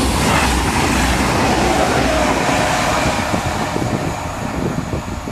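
TGV Duplex double-deck high-speed train passing at speed close by: a loud rush of air and wheel-on-rail noise that fades after about three seconds as the tail end draws away.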